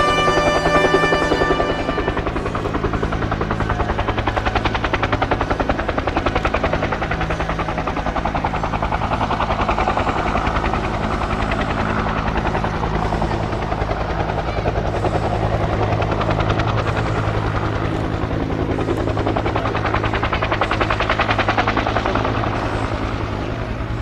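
Bell UH-1H Iroquois (Huey) helicopter flying low, its two-bladed main rotor beating steadily over the run of its Lycoming T53 turboshaft engine.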